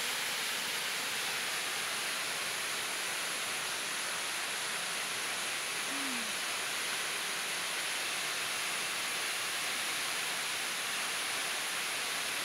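Jaeinpokpo waterfall falling into its gorge, heard from the cliff top as a steady, even rushing hiss.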